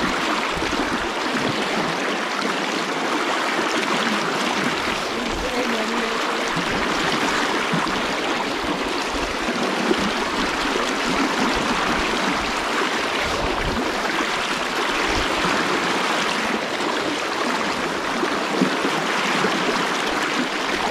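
Swift, shallow river current rushing and splashing over rocks close by, a steady water noise.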